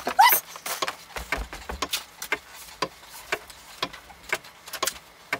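Clock ticking sound effect, about two even ticks a second, with a brief rising sound right at the start.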